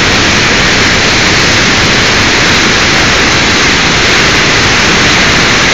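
Loud, steady rush of the flood-swollen Whetstone Brook churning through brown rapids in full flood.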